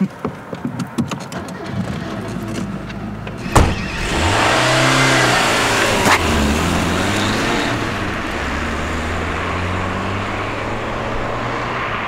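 Car driving along the road: a sharp knock about three and a half seconds in, then the engine and tyre noise swell and hold steady.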